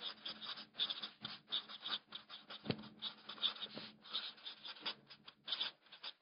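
Marker pen writing, its tip scratching across the surface in short, quick, irregular strokes as letters are formed, with one soft knock about two and a half seconds in.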